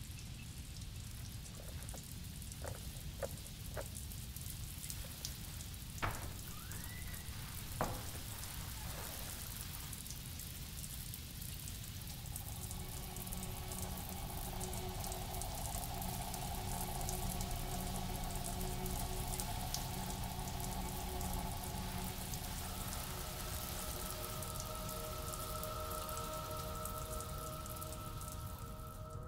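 Steady hiss of falling water, like rain, with a few sharp clicks and two louder knocks about six and eight seconds in. About twelve seconds in, low held eerie music tones come in under it and slowly swell, with a higher held note joining near the end.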